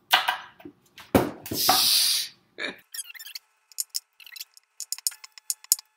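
Sharp kitchen knife cutting the ends off raw beets on a plastic cutting board: a few rasping, crunching cuts in the first couple of seconds, then a scatter of sharp clicks and taps as the blade meets the board.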